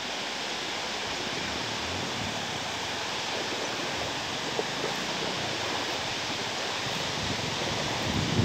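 Steady rush of water pouring from a dam, an even roar with no pauses. A few soft low thumps come about halfway through and near the end.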